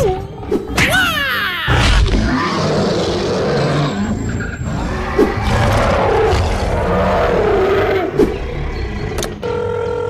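Dinosaur roar and growl sound effects over background music. Near the end a train horn starts, one steady held chord.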